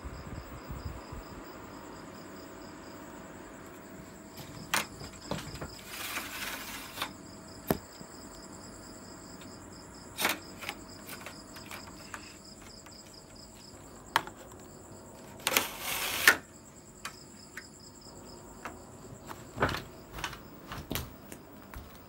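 Night insects chirping in a steady, rapidly pulsing high trill. Over it come scattered sharp clicks and knocks and two short rustling bursts, about six and fifteen seconds in; the second is the loudest.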